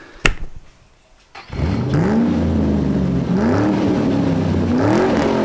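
A sharp knock near the start, then from about a second and a half in an engine revving, its pitch rising and falling in three swells.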